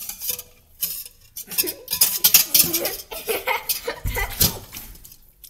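A wire whisk rattles and clinks against a stainless steel mixing bowl in quick, uneven strokes. About four seconds in comes a heavy low thump as the bowl tips and the punch spills.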